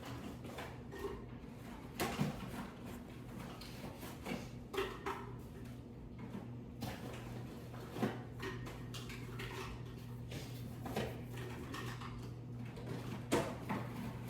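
Irregular knocks and clicks of slime-kit containers and tools being handled, a few seconds apart, over a steady low hum.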